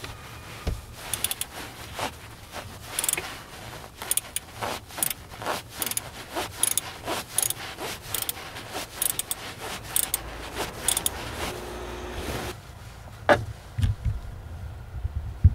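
Metallic clicking and clinking of a socket wrench turning the belt-tension adjusting bolt on a Kia Ray's alternator, loosening it to slacken the serpentine belt, with a couple of heavier knocks near the end.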